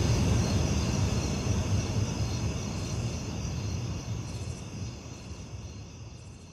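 The end of an ambient music track fading out: a low rumbling drone under several steady high tones, dying away gradually over the last few seconds.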